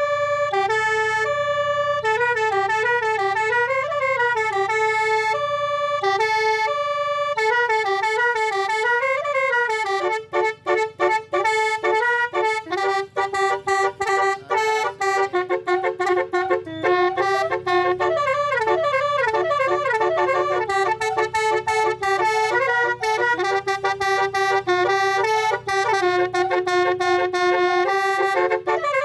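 Basuri 12-note telolet bus horn playing a tune, its pitched notes stepping up and down in a melody. About a third of the way in, the notes start changing much faster, in quick flickering runs.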